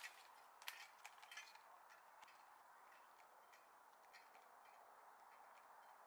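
Near silence with faint footsteps on a forest trail, a few clearer steps in the first second or so, then growing fainter as the walker moves away.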